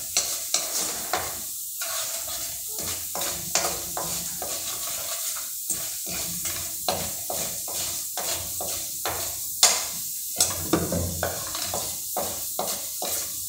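Annatto seeds frying in oil in a stainless steel frying pan with a steady sizzle, while a spatula stirs and repeatedly scrapes and taps the pan. This is the seeds steeping in hot oil to make annatto oil.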